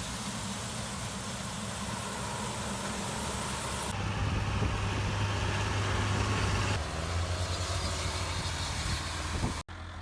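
Farm machinery engine running steadily with a wide hiss over its hum; the sound changes abruptly about four and seven seconds in and drops out for an instant near the end.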